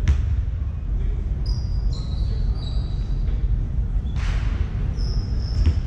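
Basketball game on an indoor hardwood court: sneakers squeaking in short high chirps, the ball thudding on the floor at the start and again near the end, over a steady low rumble of the hall.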